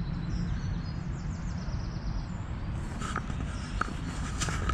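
A European robin singing faintly, a high thin warble, over a steady low rumble. In the last second and a half, a few sharp clicks and knocks as the handheld camera is moved.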